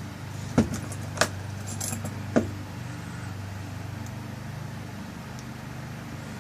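Sharp metallic clicks and clinks as the tail piece is screwed back onto a lock cylinder: four quick clicks in the first two and a half seconds, then only a steady low hum.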